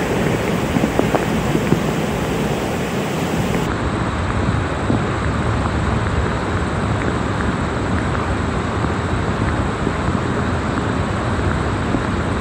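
Fast-flowing floodwater rushing steadily, with wind noise on the microphone. The sound changes abruptly about four seconds in, as one phone recording gives way to another.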